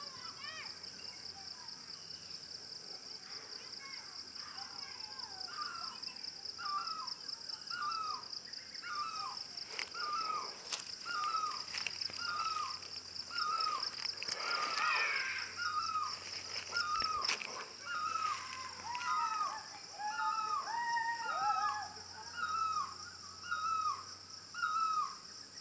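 A bird repeating a short, hooked call over and over, about one and a half calls a second, with a second bird calling lower in pitch over it about two-thirds of the way through. A steady, high, pulsing insect drone runs underneath, and a few sharp clicks come near the middle.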